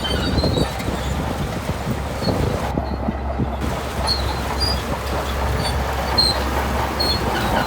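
Shantui crawler bulldozer working: a steady diesel drone with the tracks clanking and squealing throughout.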